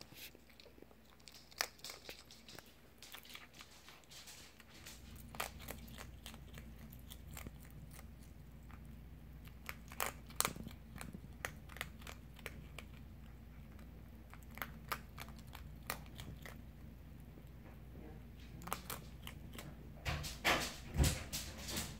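A fennec fox crunching dry kibble and mealworms, irregular sharp crunches and clicks that are densest and loudest near the end.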